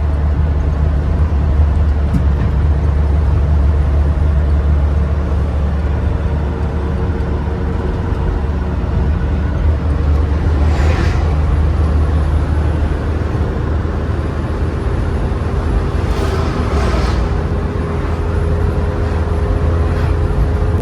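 GAZelle van driving: a steady low engine and road drone, with two brief swells of rushing noise about halfway through and again around two-thirds through.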